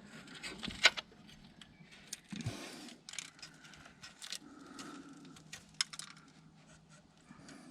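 Scattered light metallic clinks, small knocks and scrapes from metal parts being handled under a car, over a faint steady background hum.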